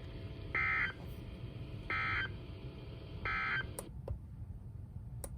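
Three short bursts of buzzing EAS/SAME digital data tones, about 1.4 s apart: the end-of-message code that closes a NOAA Weather Radio warning broadcast. The radio's background hiss then cuts off, with a few sharp clicks.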